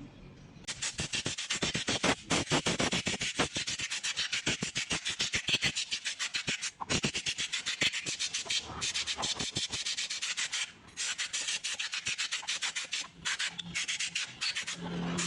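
Rapid back-and-forth scraping strokes by hand, several a second, like sandpaper or a brush worked over a metal part, with a few short pauses between runs.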